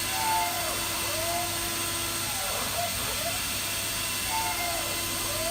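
Mazak FJV-20 machining center running, with its axis drives giving short whines that rise and fall in pitch with each move, repeating every second or two over a steady hum and hiss.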